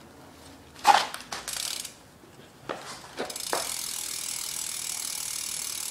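A few knocks as the BMX bike is handled. Then, from about three seconds in, the rear hub's ratchet ticks steadily and rapidly as the back wheel freewheels.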